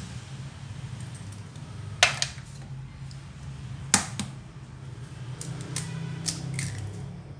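Eggs being cracked into a ceramic bowl: two sharp knocks of eggshell, about two seconds apart, followed by a run of small clicks and crackles as a shell is pulled open. A steady low hum runs underneath.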